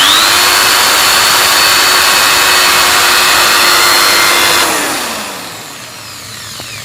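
Corded electric drill (BUILDSKILL 10 mm) revving up to full speed and running with a steady high whine as it bores a hole in wood, then released about four and a half seconds in, its motor winding down with a falling pitch.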